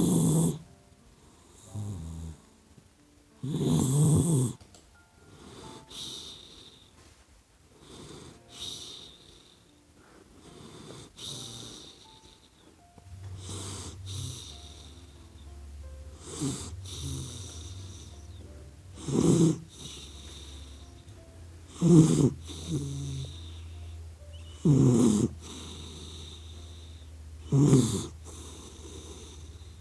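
A sleeping puppy snoring, one snore about every two and a half to three seconds, the snores getting louder in the second half. A steady low hum comes in about halfway through.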